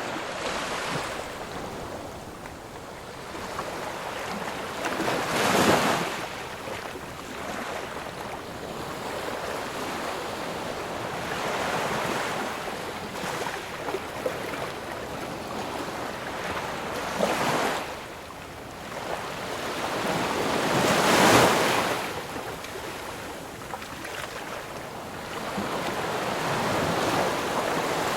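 Ocean waves breaking on a shore, a steady wash of surf with louder swells as waves crash about six seconds in, again around seventeen seconds and most strongly around twenty-one seconds.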